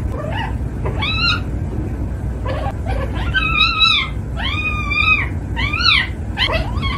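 Kitten meowing again and again, a series of high-pitched cries that rise and fall.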